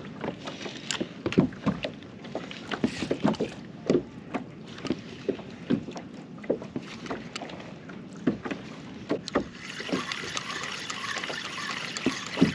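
Irregular knocks and clatter of gear on a fishing kayak, several a second at times. A steady hiss sets in near the end.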